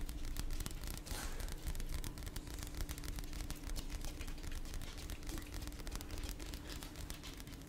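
Fingernails scratching and tapping on a paperback book's cover held close to a microphone: a dense, irregular run of small scratchy clicks.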